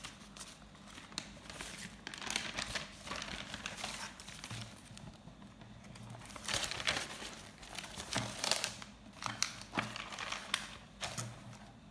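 Paper pages of a lined exercise notebook rustling and crinkling as they are turned over by hand, in several irregular bursts.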